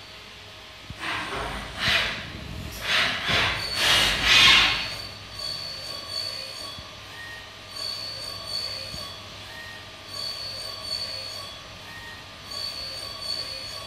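Trident vertical CNC machining center running a program. A high steady whine comes and goes, and there are several loud noisy bursts in the first five seconds, with smaller ones after that.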